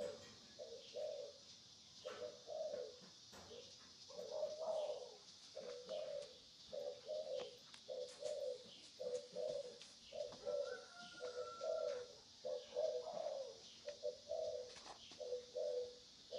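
A bird calling in a steady run of short low notes, about two a second, over a constant high hiss.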